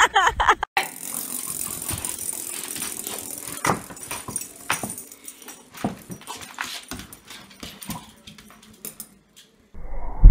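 A dog making a series of short, noisy sounds over a steady hiss.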